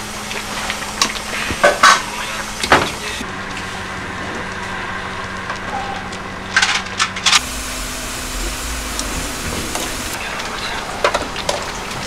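Small metal pots clanking and clattering as they are moved and set down on a gas range, a few sharp knocks at a time, over a steady kitchen hum.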